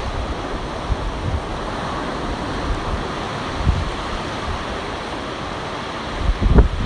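Ocean surf washing onto the beach as a steady rush, with wind buffeting the microphone in low rumbles, strongest in a short gust near the end.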